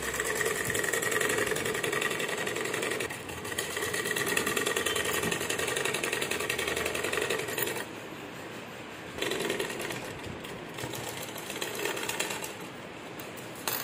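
Sewing machine stitching down a folded waistband casing around a drawstring, with a fast, even needle rattle. It runs steadily for about eight seconds, then goes quieter and stitches in shorter runs, stopping and starting near the end.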